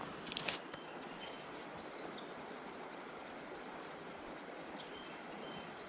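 Steady rush of a flowing creek, with a few short clicks about half a second in and faint high bird chirps twice.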